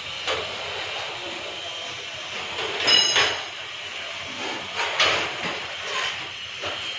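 Work-site background noise: a steady hum with a few scattered knocks, and a ringing metallic clank about three seconds in.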